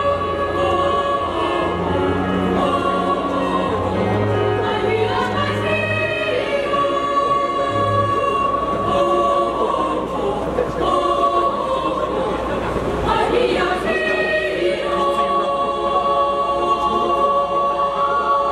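Children's choir singing a song in several voices at once, with long held notes.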